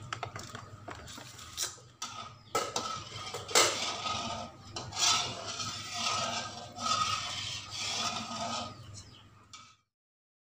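Metal spatula scraping and stirring around an aluminium wok of heating cooking oil, about half a dozen rough strokes over a steady low hum, cutting off suddenly near the end.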